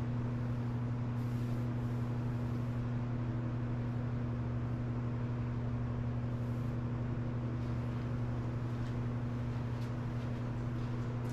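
Steady low electrical hum with an even background hiss, unchanging throughout.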